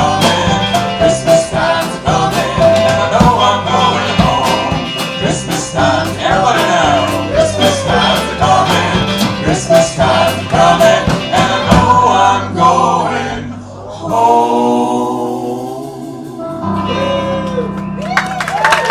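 Live bluegrass band with fast picked strings and singing, settling into a long held final chord about two-thirds of the way through. Applause begins to break out near the end.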